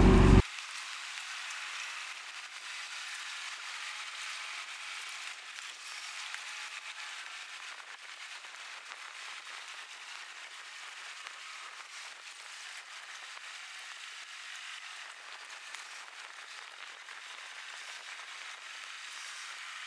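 Loud boat and wind noise cuts off abruptly just after the start, leaving a thin, steady hiss of rain with no low rumble.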